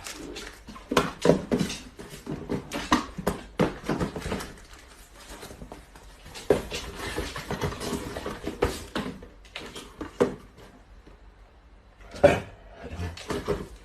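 A run of irregular knocks and clatters, with a quieter stretch shortly before the end.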